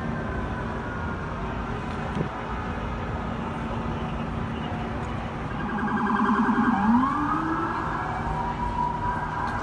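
Emergency vehicle sirens over city street traffic: a siren wail slowly falling away at first, then about six seconds in a fast warbling siren that sweeps up into a rising wail.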